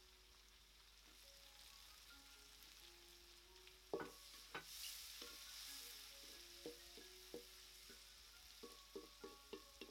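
Food sizzling in a pan while it is stirred: a sharp clack about four seconds in, a rise of sizzle, then a spatula tapping against the pan, the taps coming faster near the end, about three a second.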